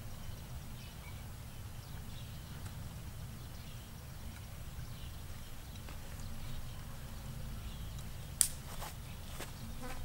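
Low, steady buzz of a fly, with one sharp click about eight and a half seconds in.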